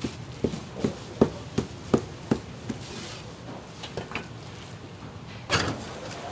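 A run of about seven even knocks on wood, close to three a second, then a few lighter knocks and a short rush of noise near the end.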